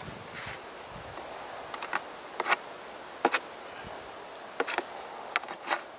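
Honeybees buzzing steadily at an opened hive, with several short sharp clicks scattered irregularly through it that are the loudest sounds.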